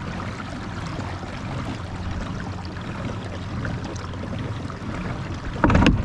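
Old Town PDL pedal kayak moving fast: water rushing along the hull over a steady low hum from the pedal drive. Near the end there is a short, loud thud as the kayak runs onto a shallow sandbar and the drive strikes bottom and pops up on its flexible locking knob.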